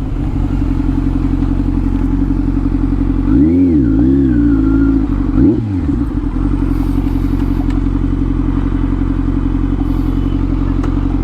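2023 Kawasaki Z900's inline-four engine running steadily through an Arrow slip-on exhaust with the dB killer removed. Its pitch rises and falls briefly about three and a half seconds in and again about two seconds later.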